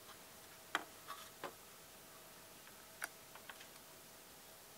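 Faint scattered clicks and taps from a printed circuit board and soldering iron being handled, about six in all, over a faint steady hum.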